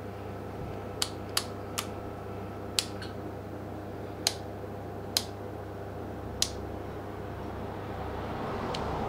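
Rotary range-selector dial of an OHM TDX-200 digital multimeter turned by hand, clicking from one detent to the next as it steps through the ranges: about seven sharp clicks at irregular intervals in the first two thirds. A steady low hum runs underneath.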